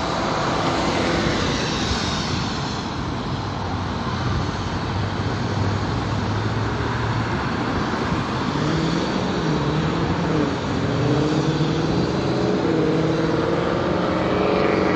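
A helicopter running on the ground with its rotors turning, waiting to lift off: a steady engine-and-rotor noise mixed with passing street traffic. From about eight seconds in, a road vehicle's engine note rising and falling in pitch joins in.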